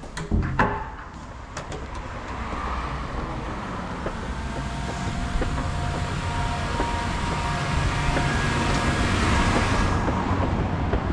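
A door's lever handle and latch click open a couple of times near the start. After that comes a steady wash of outdoor traffic and wind noise, slowly growing louder, with a faint steady hum in it.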